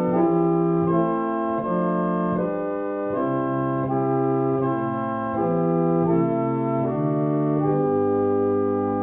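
J J Binns pipe organ played on the open diapason 8-foot stop, the basic principal sound of the organ: a slow passage of sustained chords changing every second or so, ending on a long held chord with a lower bass note near the end.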